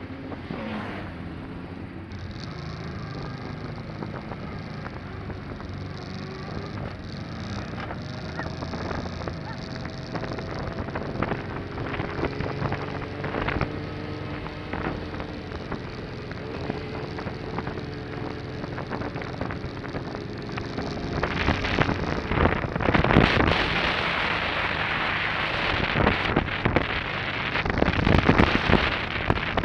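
Motorcycle engine running while riding, with wind noise on the microphone that gets much louder over the last several seconds.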